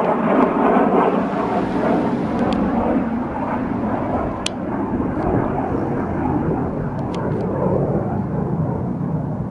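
Jet noise of a Panavia Tornado's twin RB199 turbofans as the jet passes low overhead and flies away, loudest at first, then slowly fading and getting deeper as it recedes.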